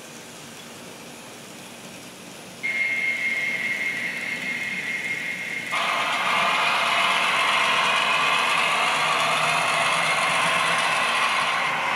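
Onboard sound-decoder engine effects of Kato N-gauge DCC locomotives switching on, played through their tiny built-in speakers. About two and a half seconds in, a steady high tone with hiss starts. About three seconds later a louder, fuller layer of engine sound joins it as another locomotive's sound comes on, and it then runs steadily.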